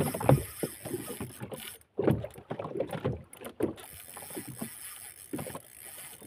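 Sea water slapping and splashing against the hull of a small fishing boat, in irregular surges, with sharper knocks at the start and about two seconds in.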